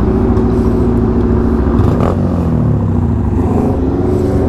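Small motorcycle engines running at low revs, with a short dip and rise in engine pitch about two seconds in.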